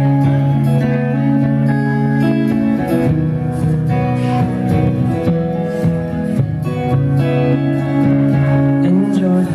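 Acoustic-electric guitar strummed in an instrumental passage, steady strokes over held chords that change every few seconds.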